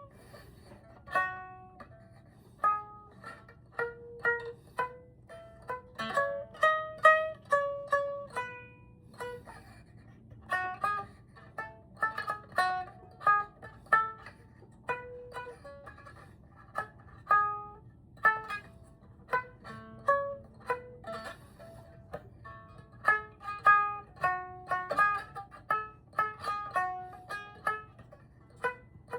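A biwa, a Japanese lute, being plucked in a simple melody, one note at a time, each note ringing briefly; the freshly restored instrument has just been retuned. The playing pauses briefly twice.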